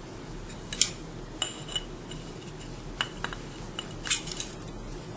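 Light metallic clicks and clinks, about eight of them scattered irregularly, a few with a short ring: a stainless steel valve plate and its screws being handled and lifted off an oil-free vacuum pump's head.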